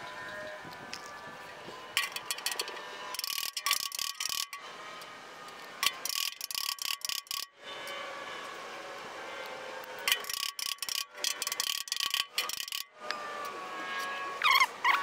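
Three bursts of quick metallic taps from a body slapper striking a Jaguar E-type door skin against a hand dolly, each burst followed by a faint metal ring. The top edge of the door skin is being dressed down bit by bit to straighten it.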